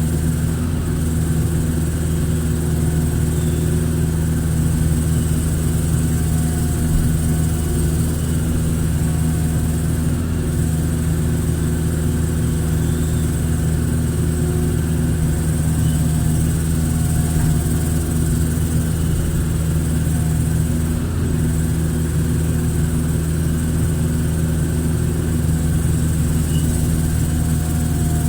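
Hitachi hydraulic excavator's diesel engine running steadily, with a faint higher tone coming and going every couple of seconds.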